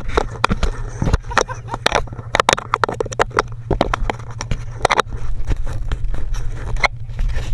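ATV engine idling with a steady low hum, under frequent sharp clicks and rattles.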